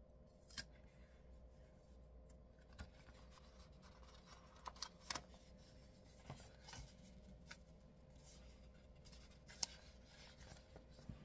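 Faint, scattered small clicks and rustles of sticker sheets being handled as box stickers are picked out, over quiet room tone with a faint steady hum.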